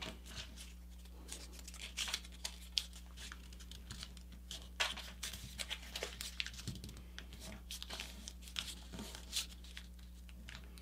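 Paper crinkling and rustling as a folded paper airplane is handled, with many short, faint crackles as its folds are pressed into creases.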